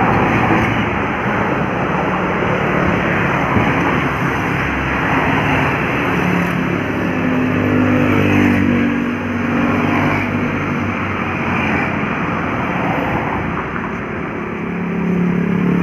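Road traffic passing close by, with buses among it: engine drone and tyre noise. A heavy engine swells louder around the middle and again near the end.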